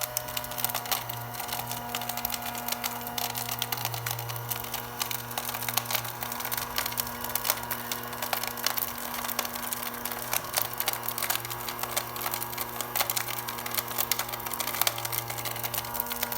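Small 12 V DC motor of a homemade cardboard vacuum cleaner running steadily, with a dense, irregular clicking rattle over its hum.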